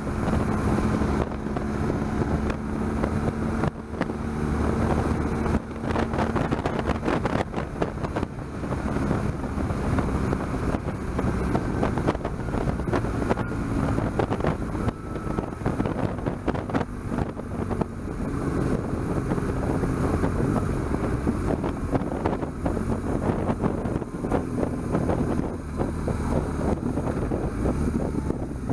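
BMW R1200GS flat-twin boxer engine running under way, with wind rushing over the camera microphone. The engine note holds steady for the first several seconds, then shifts in pitch as the riding goes on.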